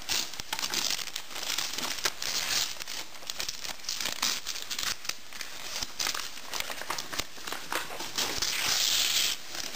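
A child tearing and crumpling gift wrapping paper and tissue paper by hand while unwrapping a present: continuous rustling with sharp rips, swelling into a longer, louder rustle near the end.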